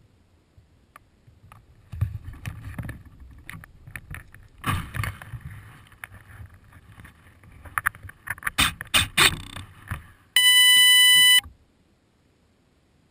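Handling noise of the model plane and its camera being set down and worked on in grass: scattered clicks, bumps and rubs. Near the end comes one steady electronic beep about a second long, the loudest sound.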